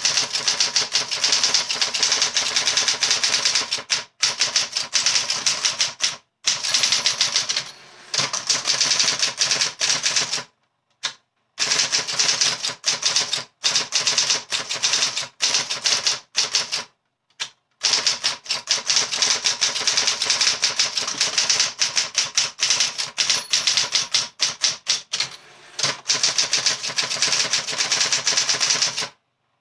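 Olympia SGE 35 electric typewriter being typed on fast: a dense, rapid clatter of typebars striking the platen in long runs, broken by brief pauses a few times.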